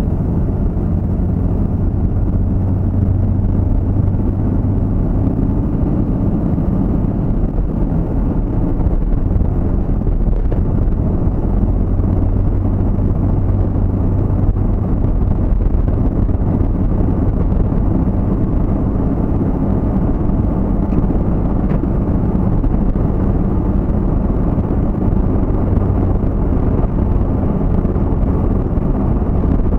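Steady low rumble of engine and road noise inside a moving vehicle's cabin, cruising without change.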